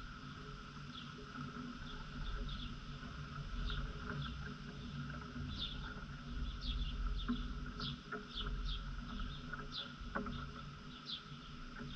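Small birds chirping over and over in short, falling notes, over a steady background hum and a low rumble, with a few faint clicks.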